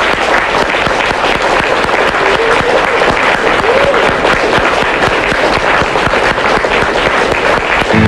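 A large crowd applauding steadily, with dense overlapping hand claps. A voice briefly calls out above the clapping near the middle.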